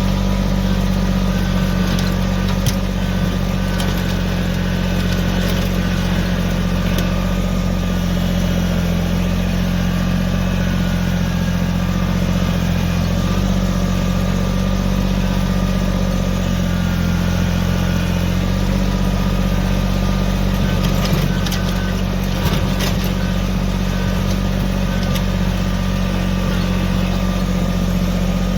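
Kubota BX25 compact tractor's three-cylinder diesel engine running steadily, its speed shifting slightly a couple of times. A few light knocks come about three-quarters of the way through.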